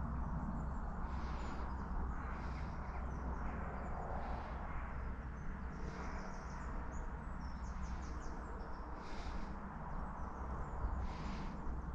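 Outdoor riverbank ambience: a steady low rumble with short bird chirps every second or two.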